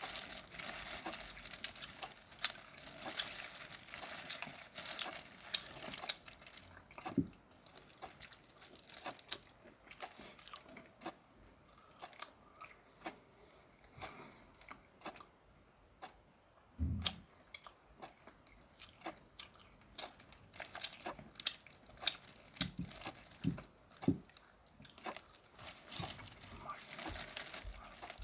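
Steamed shrimp being peeled and eaten close to the microphone: crinkling and crackling of shell at the start and again near the end, with sparser clicks, bites and chewing in between.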